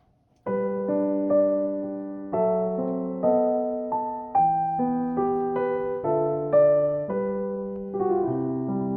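Background music: a gentle solo piano melody starting about half a second in, slow notes and chords.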